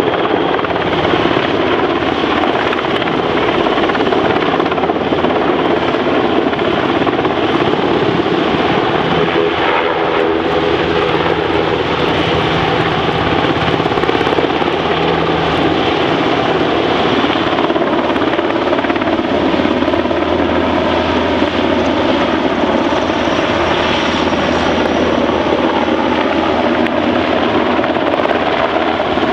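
NH90 twin-turbine military helicopter in flight, its rotor and engine noise loud and steady.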